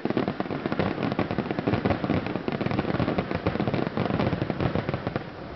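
Fireworks display: a dense, rapid run of bangs and crackles from shells bursting one after another with no break, easing off near the end.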